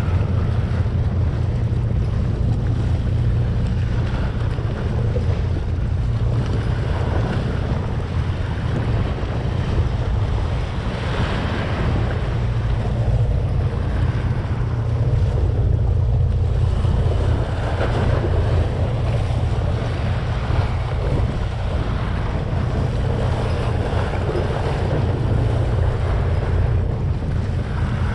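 Wind buffeting the microphone in a steady low rumble, over small waves washing and splashing against the breakwater rocks, swelling now and then.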